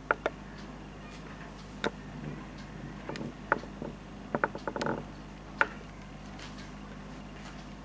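A steady low hum with a handful of sharp clicks and taps scattered through it, including a quick cluster of them about four and a half to five seconds in.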